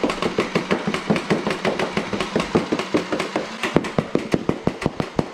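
Nerf Rival Prometheus fully automatic flywheel blaster firing foam balls in a rapid, even stream, several shots a second, over the steady whir of its spinning wheels and feed motor.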